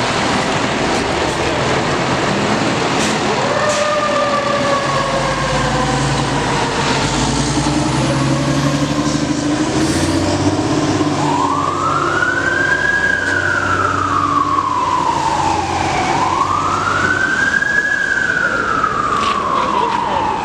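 Fire truck sirens wailing over the low rumble of the trucks' engines. Short rising glides come first, then from about halfway the siren sweeps slowly up and down twice, each cycle about five seconds.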